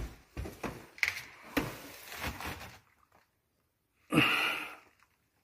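Footsteps going down a stairway, a run of irregular dull steps and knocks over the first three seconds, then a short loud rush of noise about four seconds in.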